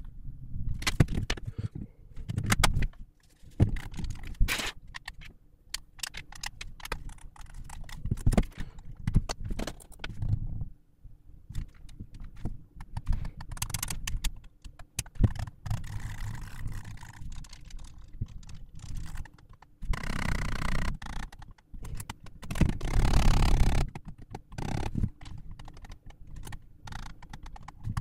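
Irregular clicks, taps and clatter of small hard plastic parts being handled, typical of working on a game controller at the bench. There are two longer scraping or rustling noises, about 20 and 23 seconds in, the second the loudest.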